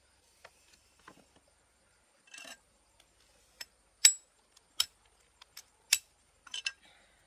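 Cooked crab shell being cracked and snapped apart by hand: a series of sharp cracks and crunches, the loudest about four seconds in.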